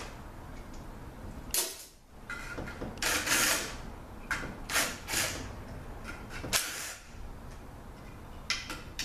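Cordless drill-driver spinning out transmission oil pan bolts in several short bursts. The bolts were already broken loose.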